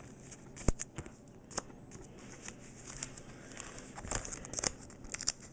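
Pokémon trading cards being handled and slid out of plastic binder-page pockets: soft plastic rustling with scattered light clicks, the sharpest a little under a second in, and a flurry of rustling about four seconds in.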